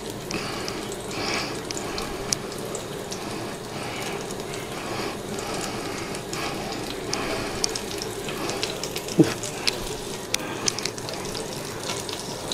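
Oil sizzling steadily in a frying pan as buckwheat cutlets are laid in to fry, with a few light clicks.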